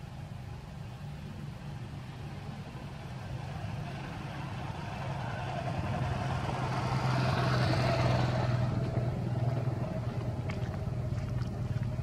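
A motor vehicle's engine running with a steady low hum, swelling louder to a peak about two-thirds of the way through as it passes, then easing off.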